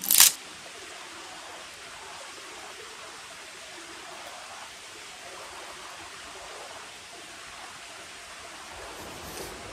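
Steady rushing of a creek, with a brief loud sharp burst just after the start and a fainter one near the end.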